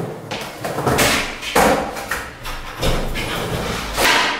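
Skateboard with an acoustic-foam-covered deck being popped and landed on a concrete floor: a few sharp clacks and thuds of the tail and wheels striking the ground, the loudest about a second and a half in and near the end.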